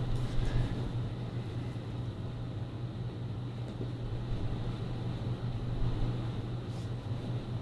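Steady low hum of a room air conditioner running, with no other sound standing out.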